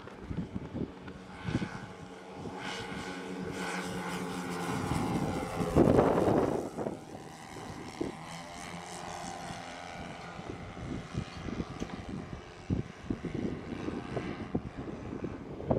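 The four engines of a 1/10-scale radio-controlled B-17 model droning as it flies past. The sound swells to its loudest about six seconds in, then drops in pitch and fades. Gusts of wind buffet the microphone throughout.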